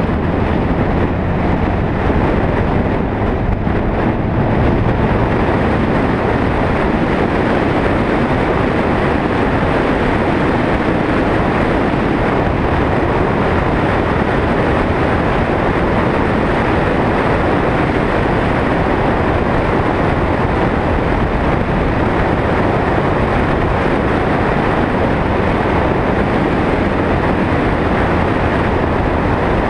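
Steady, loud driving noise from a vehicle climbing a mountain road: engine, tyre and wind noise blended together.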